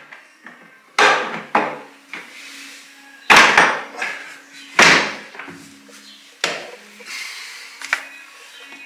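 Hard plastic knocks and clatters as the Separett composting toilet's hinged top and seat lid are handled and set against the bowl: about six sharp knocks, the loudest two in the middle.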